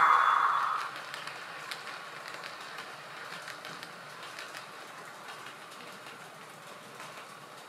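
Model railway container wagons rolling along the track: a quiet, even rolling hiss with scattered small clicks from the wheels on the rails. A louder hum fades out in the first second.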